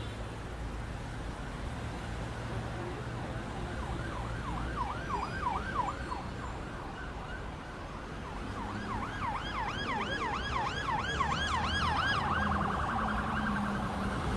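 Emergency vehicle siren in fast yelp mode, rising and falling about four times a second. It comes in about four seconds in, drops back, returns louder, then holds a steady tone near the end. A low steady rumble runs underneath.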